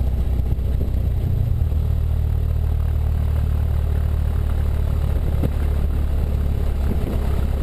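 Cessna 172 Skyhawk's piston engine and propeller running steadily at low taxi power, a low, even drone.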